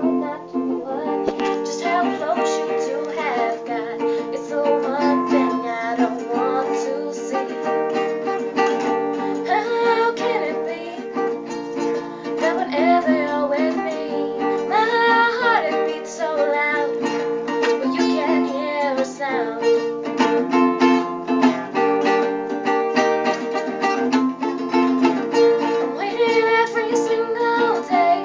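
A woman singing, accompanied by a steadily strummed acoustic string instrument.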